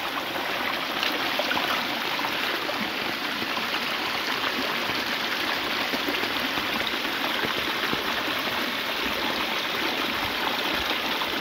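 Muddy rainwater runoff flowing fast down a shallow grassy channel: a steady rush of water.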